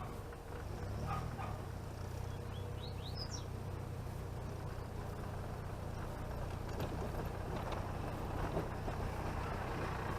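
Chevrolet Chevette driving along a road, heard from inside the car: steady engine hum and road noise. A brief high chirp comes about three seconds in, and there are a few light knocks.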